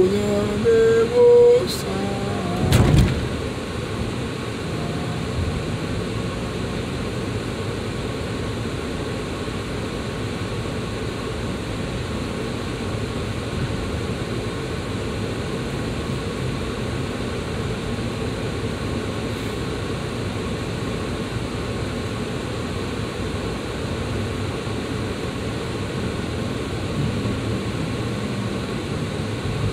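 Steady road and engine noise inside a moving car's cabin. In the first couple of seconds a few short pitched sounds step upward in pitch, and a thump comes about three seconds in.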